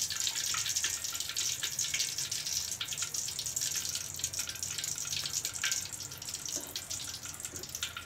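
Hot cooking oil in a wok on the stove giving a steady sizzling hiss sprinkled with small crackles, heated for frying potato fritters.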